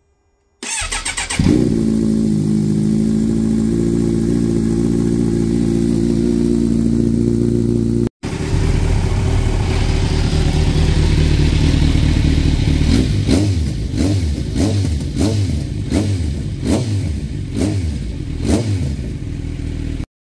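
Kawasaki Ninja 1000SX's inline-four engine cranking on the starter and catching from cold, then idling steadily through a Black Widow full exhaust with the baffle out, about 88 dB. Then, with the baffle fitted, it idles at about 81 to 83 dB and is given a series of quick throttle blips, the pitch rising and falling with each.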